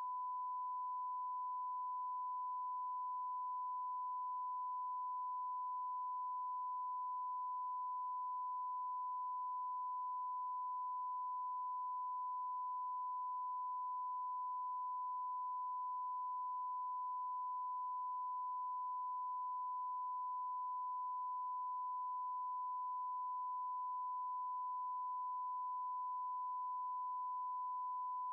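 A steady electronic pure tone, one unwavering high beep held at the same pitch and level without a break, like a test tone.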